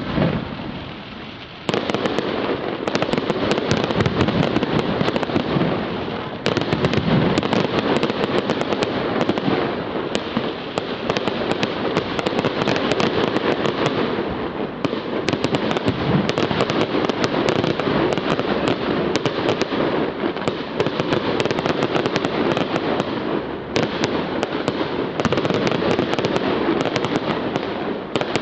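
Fireworks display: a dense, near-continuous barrage of aerial shell bursts, sharp bangs and crackle, after a short lull about a second in.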